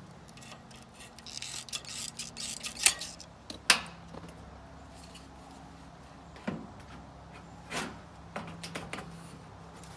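Tin snips cutting thin sheet-steel trim: a run of metallic snips with two loud sharp clips a little after three seconds in. Later, a few light clacks and scrapes of the steel trim being handled and set against the steel panel.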